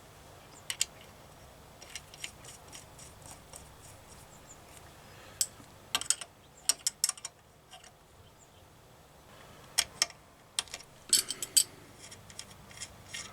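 Scattered sharp metallic clicks and ticks from small hand tools working on a thread-repair insert in an aluminium manifold adaptor, with a few quick clusters of clicks.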